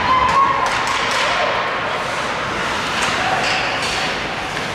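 Indoor youth game noise in a large hall: a steady din of crowd and players with several sharp thuds and knocks from play.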